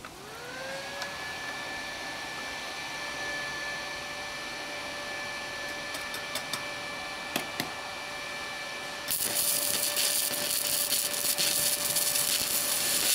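Small stick-welding inverter switched on, its cooling fan spinning up to a steady whine. A few sharp ticks of the 2 mm electrode against the steel, then about nine seconds in the arc strikes at minimum current and crackles and hisses steadily, much louder than the fan.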